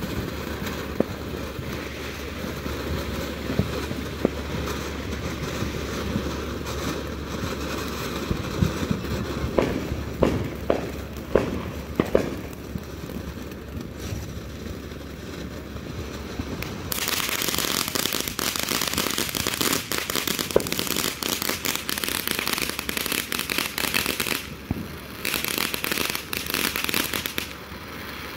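Phantom Fireworks 'Oil Lamp' ground fountain burning: a steady hiss of spraying sparks with scattered sharp pops, thickest about ten to twelve seconds in. From a little past halfway the spray turns louder and brighter with crackling, dropping off briefly near the end before picking up again.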